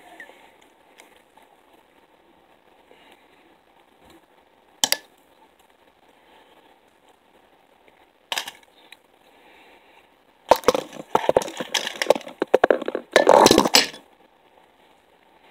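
Hands handling fly-tying materials close to the microphone: two sharp clicks a few seconds apart, then several seconds of loud crackling and rustling near the end.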